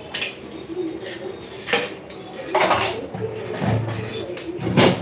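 Kitchen dishes and utensils clinking and knocking together as they are handled, a series of separate sharp clinks, the loudest near the end.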